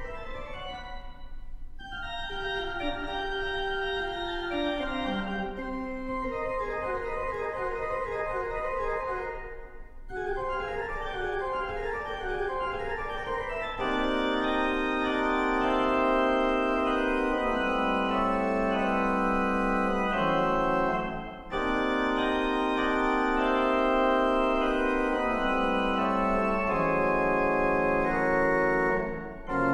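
Grant, Degens & Bradbeer pipe organ playing: quick running figures over a stepping-down lower line, then from about halfway a louder, fuller sound of long held chords over a moving bass, with brief breaks between phrases.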